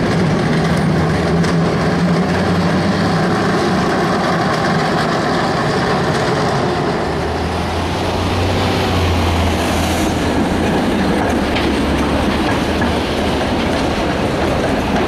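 Heritage electric streetcars running on street track: a steady rumble of steel wheels and traction motors, first from a Milan Peter Witt tram, then from a PCC car. The low hum changes about seven seconds in.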